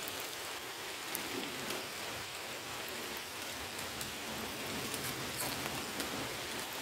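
Steady rain falling on woodland, an even hiss dotted with faint ticks of single drops.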